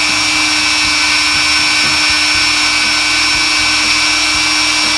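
Rotary tool on a flex shaft running at a steady high whine, its felt buffing bob charged with green polishing compound working the feed ramp of a pistol barrel.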